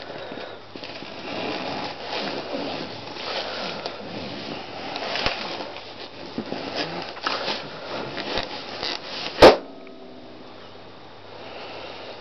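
A latex balloon squeezed under a socked foot, its rubber squeaking and rubbing against the bedspread, then bursting with one loud pop about nine and a half seconds in.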